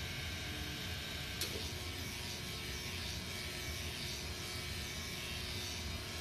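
Electric shaver running steadily while lying on the floor, with one sharp click about a second and a half in.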